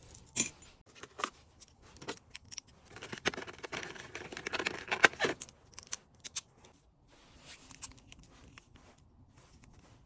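Pens and their plastic packaging being handled and packed: scattered light clicks and taps of pens knocking together, with a stretch of plastic rustling about three to five seconds in.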